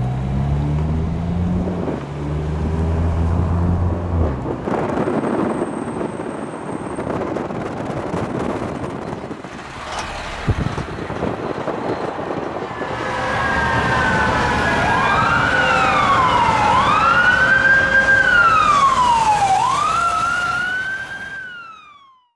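A heavy vehicle engine revs up, followed by traffic noise. About halfway through, a fire engine's siren starts wailing, gliding up and down, and is the loudest sound. The sound cuts off suddenly near the end.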